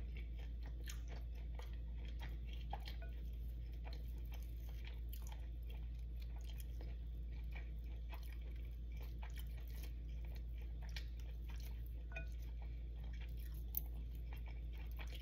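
Cooked chicken being pulled apart and skinned by hand: faint, soft wet tearing with many small sticky clicks, over a steady low hum.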